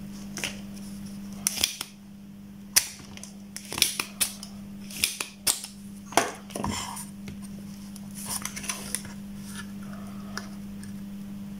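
A spring-loaded desoldering pump and a soldering iron at work on a circuit board, clearing solder from a broken joint before it is resoldered. A series of sharp clacks comes mostly in the first seven seconds, with a few fainter clicks later and a steady low hum underneath.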